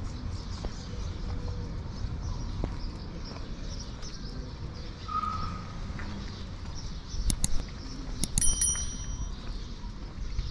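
Quiet street ambience: a steady low rumble with faint birds chirping, and a few sharp clicks about seven to eight seconds in, the last with a brief ringing clink.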